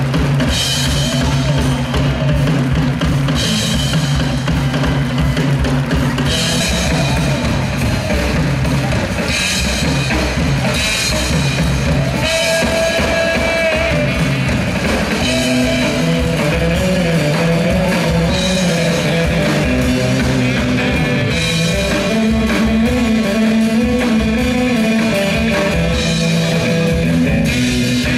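Live rock band playing an instrumental passage on drum kit and guitar, with a steady beat and a shifting melody line.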